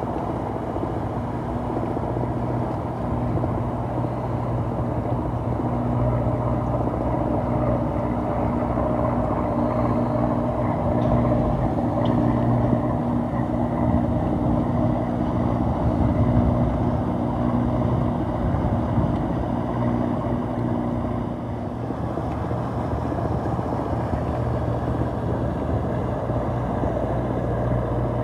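Motor cruisers' engines running as the boats travel along the river, a steady low engine drone; some of its higher tones drop out about three-quarters of the way through.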